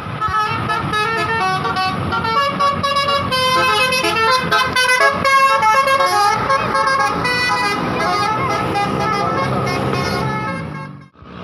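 Telolet basuri bus horn, a set of musical air horns, playing a tune in stepped notes with several tones sounding together, over the low rumble of the bus. It cuts off suddenly near the end.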